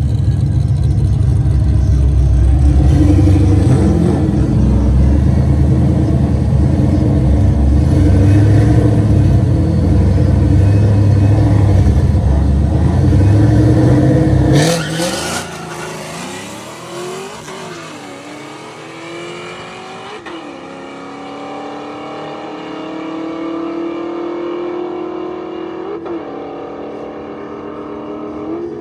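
Loud, low engine noise from drag race cars close by for about the first half. Then it changes suddenly to cars accelerating hard down the strip: the engine pitch rises and drops back several times as they shift through the gears.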